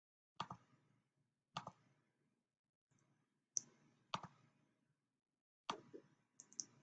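A handful of small, sharp clicks, about six spread over several seconds, some coming as quick double clicks.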